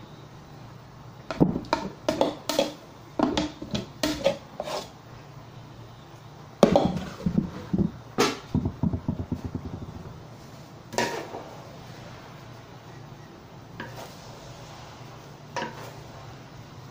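Metal spatula clattering and scraping against a large metal wok of rice, in irregular bursts with a quick run of strikes about eight to ten seconds in, then a few single knocks.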